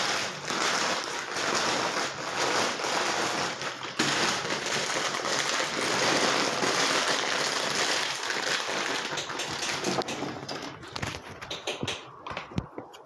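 Plastic dog food bags rustling and crinkling as they are handled and wrapped around a toy. The noise runs steadily for about ten seconds, then grows quieter, with a few sharp knocks near the end.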